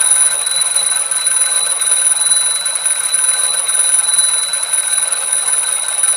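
Small mechanical alarm clock's bells ringing, loud and continuous.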